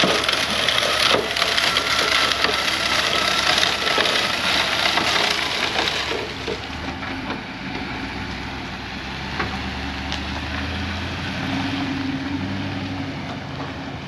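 BOSS truck-bed salt spreader flinging rock salt onto concrete: a dense, gritty crackle of granules hitting the pavement for about the first six seconds. Then the pickup's engine hum grows as it drives past and fades as it pulls away.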